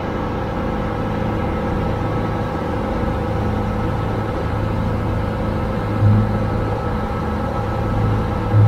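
Motorboat under way: a steady engine drone with the rush of wake and spray along the hull. The low drone swells briefly about six seconds in and again near the end.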